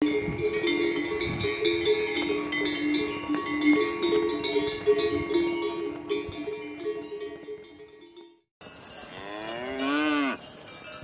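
Many bells on a caravan of pack yaks clanking and ringing as the animals walk, slowly fading out. Then a cow moos once, a call of about a second that rises and falls.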